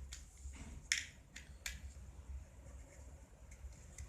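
A few sharp clicks and light handling noise from a handmade leather Zippo lighter case being handled, the loudest click about a second in, over a steady low hum.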